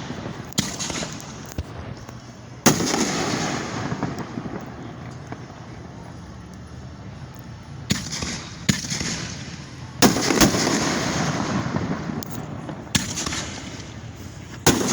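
Fireworks exploding: about eight sharp bangs at irregular intervals, the loudest about three and ten seconds in, each trailing off in an echoing rumble.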